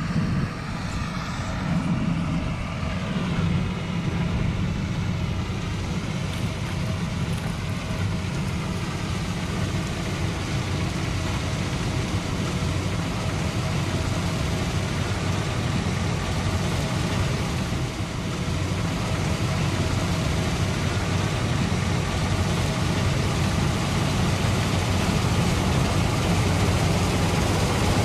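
Combine harvester running steadily: a low engine hum with a faint steady whine above it.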